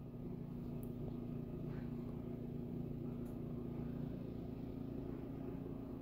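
A steady low hum at one fixed pitch, even in loudness throughout.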